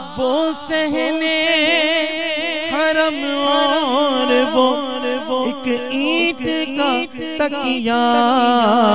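A man singing an Urdu manqabat solo into a microphone: long drawn-out sung lines with a wavering, ornamented pitch, broken by short pauses for breath.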